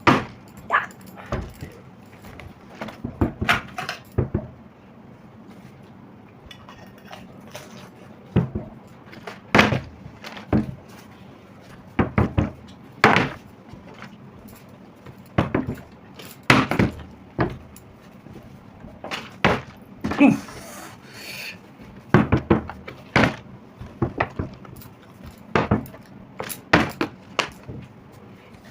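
A bottle being flipped again and again in a bottle-flip game, landing with irregular knocks and thuds every second or two as the attempts mostly fail.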